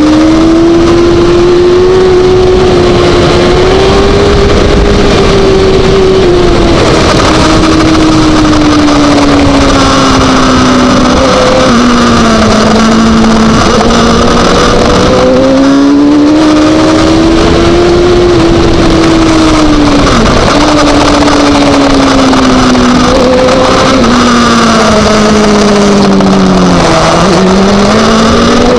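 Racing supersport motorcycle engine run hard, heard onboard: a loud, high-revving note that climbs under acceleration and several times drops sharply and climbs again as the rider shifts and brakes for corners, over steady wind rush on the microphone.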